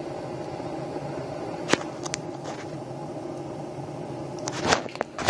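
Rocket heater burning hard, a steady droning hum of several low tones. A few sharp clicks come about two seconds in, and a cluster of knocks near the end.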